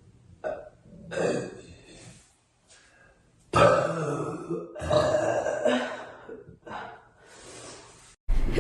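A girl burping several times in a row: a short burp, then a longer one, then two long, loud burps one after another, and a last breathier one near the end.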